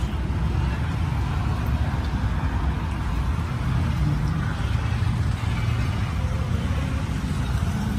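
A vehicle engine idling: a steady low rumble that does not change.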